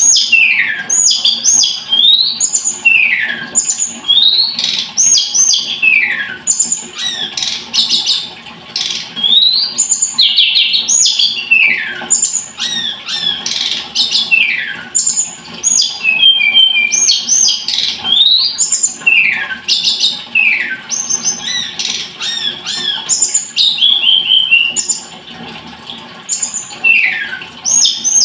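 Tledekan gunung (hill blue flycatcher) singing continuously: repeated phrases of clear whistled notes that slide down in pitch, mixed with short high chirps.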